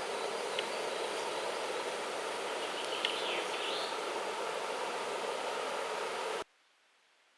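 Steady outdoor rushing noise with a short chirp about three seconds in, cutting off abruptly near the end into near silence.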